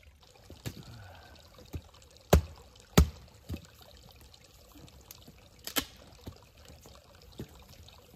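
Newly lit campfire crackling, with sharp pops scattered irregularly through it; the two loudest come a little after two and three seconds in.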